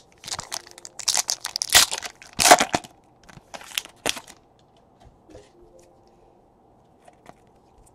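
Foil wrapper of a trading-card pack being torn open and crinkled by hand: a run of crackling rips in the first four seconds, loudest around two seconds in, then only a few faint rustles.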